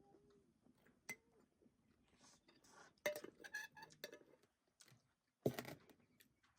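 Dishes and pots clinking and knocking against each other in a few separate bursts, with one louder knock about five and a half seconds in.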